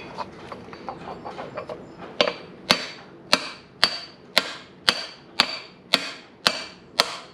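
Hammer tapping a steel socket to drive a bearing's inner race into the mulcher's bearing housing. After a few soft clicks, light, evenly spaced taps begin about two seconds in, roughly two a second, each with a short metallic ring.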